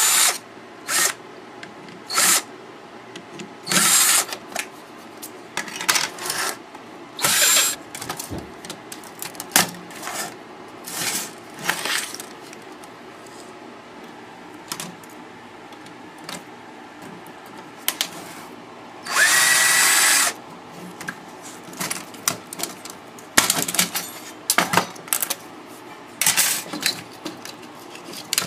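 Cordless power drill/driver running in short bursts, about a dozen times, as screws are driven out of a car stereo's casing, with small clicks and knocks of parts being handled between bursts. One longer run about two-thirds through has a rising whine.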